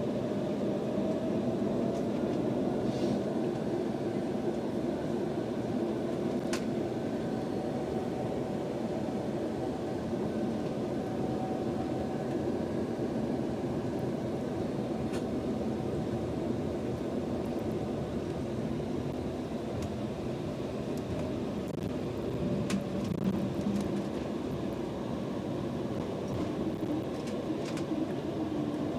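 Steady cabin noise inside an Embraer E190 airliner: its General Electric CF34 turbofans running at low power under the hiss of the cabin air, with a faint whine that drifts slightly in pitch and a few faint clicks.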